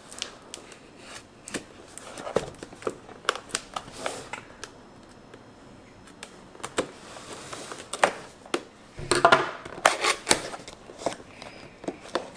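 Keyboard box and its cardboard packaging being opened and handled: scattered taps, clicks, scrapes and rustles, busiest about nine to ten seconds in.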